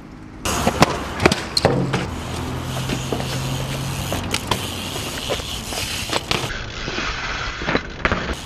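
BMX bike riding on concrete: the tyres roll on paving, and the wheels and frame knock sharply several times as the bike hops onto and lands off ledges.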